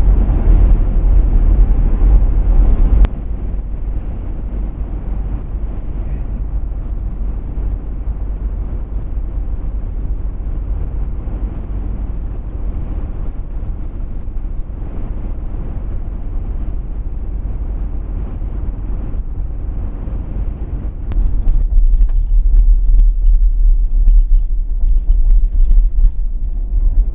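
Cabin road noise of a Chevrolet Tahoe driving: a steady low rumble of tyres and engine. It drops abruptly to a quieter, duller level about three seconds in and comes back up just as abruptly near the end.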